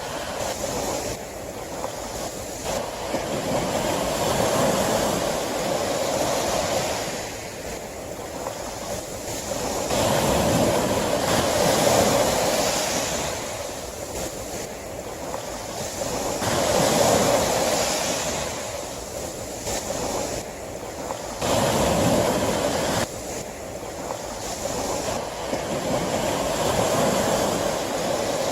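Sea waves breaking and washing on the shore, a rushing surf that swells and falls back about every five or six seconds.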